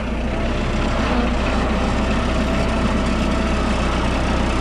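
Kubota compact tractor's diesel engine running steadily at idle, with a faint steady whine over it.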